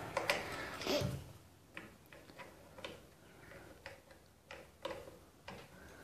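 Irregular light clicks and ticks of a small screwdriver working the terminal screws of an electric water heater's thermostat, loosening its wires.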